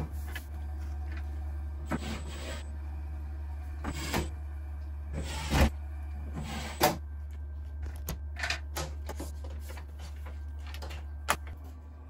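Rinnai tankless gas water heater running just after ignition, along with its recirculation pump, a steady low hum that fades near the end. A few brief knocks and rustles cut through it as the unit is handled.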